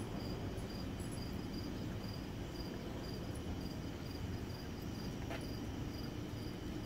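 Crickets chirping in a steady rhythm, about three high chirps a second, over a continuous trill and a low background rumble.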